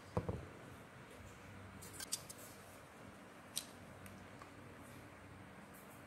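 Kitchen tongs clicking and knocking against a metal saucepan while lifting boiled long beans out: a knock just after the start, then a few light clicks about two seconds in and one more about a second and a half later, over a faint steady hum.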